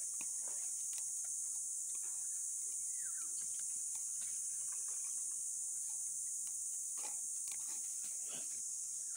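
Steady high-pitched insect drone, with a faint falling chirp about three seconds in and a few soft clicks near the end.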